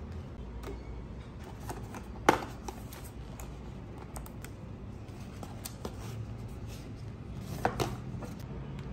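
Hands handling takeout packaging on a table, mainly a kraft cardboard box: light rustling and taps, with one sharp knock about two seconds in and two clicks near the end as the cardboard box is opened.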